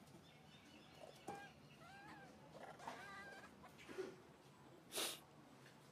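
Long-tailed macaques calling: several short, squeaky calls that rise and fall in pitch. About five seconds in comes a short harsh burst, the loudest sound.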